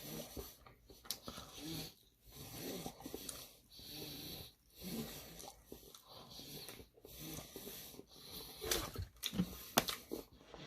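Close-miked chewing with breathing through the nose in short pulses about once a second, and a few sharp clicks about eight to ten seconds in.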